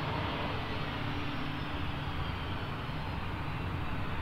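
Cessna 560 Citation Encore business jet's twin turbofan engines running steadily as the jet taxis along the runway, with a thin high whine that slowly falls in pitch.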